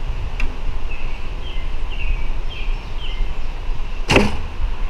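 A Muzzy Addict takedown recurve bow is shot once about four seconds in, a single sharp snap of string and arrow. The arrow leaves at about 97 feet per second.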